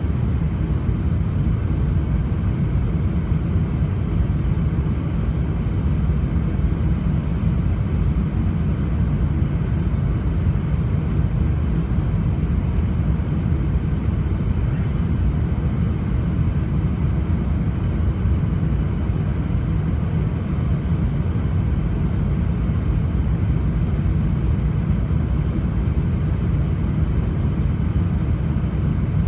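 Steady cabin noise of a Boeing 747-400 airliner on approach, heard from inside the passenger cabin: an even, heavy rumble of engines and airflow, strongest in the low end and unchanging throughout.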